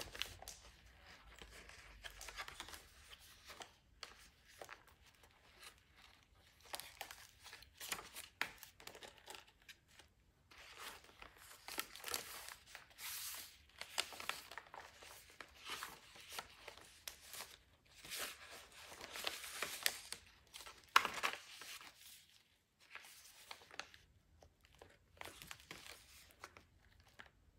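Paper pages and fold-out flaps of a handmade journal rustling and swishing as they are unfolded and turned, in irregular bursts of handling with one sharper paper snap partway through.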